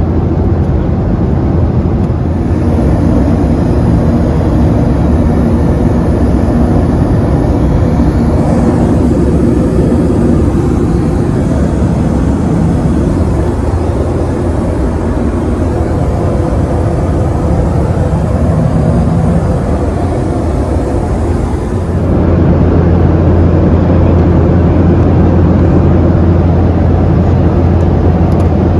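Steady, loud drone of a Boeing 737-800 heard from inside the cabin: engine hum and airflow noise, with a strong low hum. It steps up in level suddenly about 22 seconds in.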